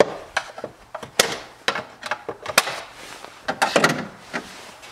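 A screwdriver prying open the buckle clips on a 2007 BMW X3's plastic air filter box lid: a series of sharp clicks and plastic knocks, coming thicker near the end as the clips let go.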